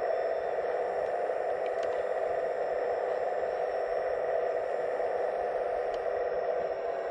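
Steady, even whine of the electric motors and hydraulic pumps of 1/15-scale RC construction models running, with a few faint ticks.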